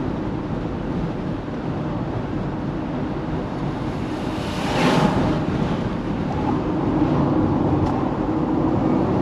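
Steady road and engine noise of a car being driven, heard from inside it, with a brief louder whoosh about five seconds in.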